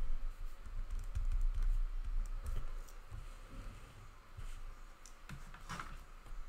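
Soft irregular knocks and rustling as a sheet of paper is shifted across a desk and a pen is put down, with a few sharp clicks later on.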